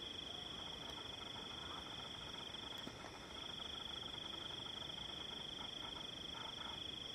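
Night insects trilling in a steady, high, continuous note, with a brief break about three seconds in.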